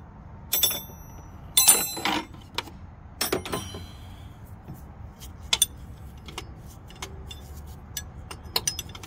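Metal hand tools clinking and clattering as a wrench is swapped for another: a few ringing clanks in the first few seconds, then lighter scattered ticks of metal on metal.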